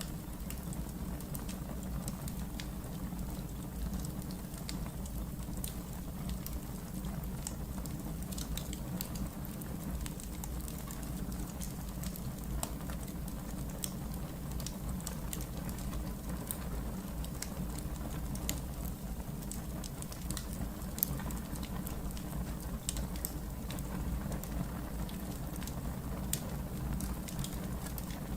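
Wood fire burning in a fireplace: irregular small crackles and pops over a steady low rumble.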